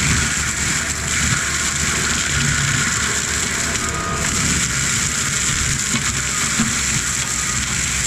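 ASV RT-135 compact track loader's diesel engine running hard with its forestry mulcher drum spinning and grinding brush, a steady, loud, dense mechanical noise.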